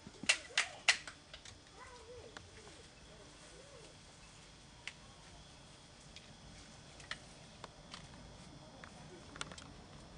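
Three sharp clacks in quick succession within the first second, then a few scattered faint clicks.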